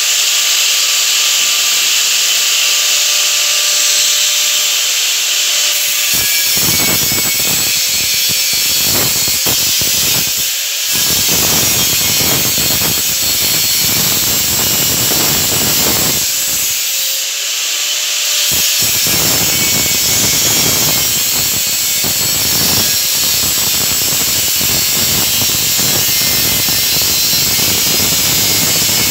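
Electric angle grinder running, spinning free at first, then grinding into a painted steel frame about six seconds in and throwing sparks. The grinding runs in long passes, easing off briefly near eleven seconds and again for a couple of seconds around seventeen.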